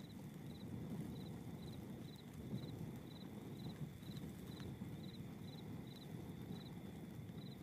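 A cricket chirping at an even pace, about two short chirps a second, over a faint low rumble of background noise.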